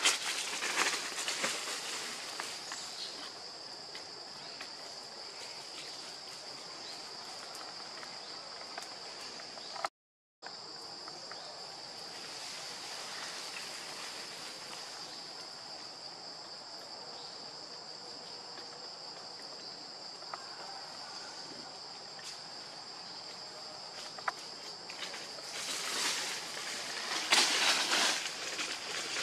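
Steady high-pitched drone of insects, with a fainter higher tone above it, cutting out for a moment about ten seconds in. Crackling rustles near the start and over the last few seconds.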